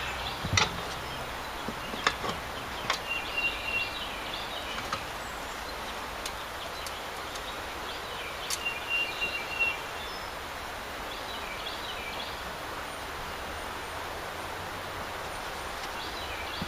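Outdoor background hiss with a bird chirping in short high phrases three times. A few light clicks and knocks come in the first half, from parts being handled.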